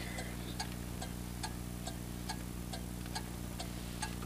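Car turn-signal flasher clicking at an even pace, a little over two clicks a second, over a low steady hum.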